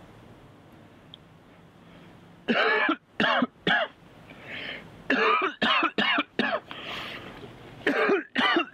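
A man coughing hard in three fits: three coughs about two and a half seconds in, four quick coughs around five seconds, and two more near the end, with rasping breaths between.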